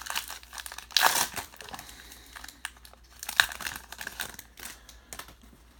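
Foil trading-card pack wrapper being torn open at its crimped seal and crinkled as the hands pull it apart, with the loudest rips about a second in and again near three and a half seconds.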